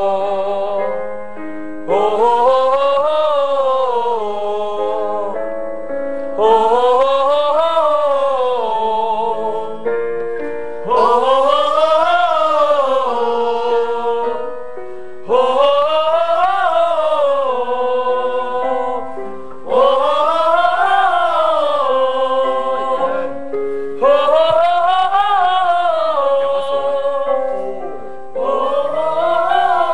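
A group of voices doing a vocal warm-up exercise in unison: a short phrase that climbs in pitch and slides back down, repeated seven times, each run about four seconds long. A piano plays the notes underneath, and each run starts with a jump in loudness.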